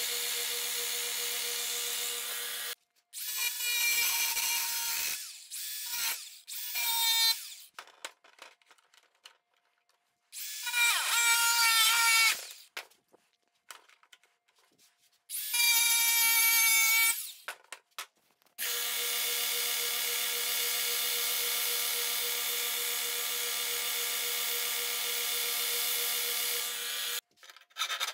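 Power tools on metal: a bench edge belt sander runs as a small steel part is ground against the belt, throwing sparks. A motor then starts and stops in several short bursts, its pitch rising as it spins up, before a steady machine run resumes.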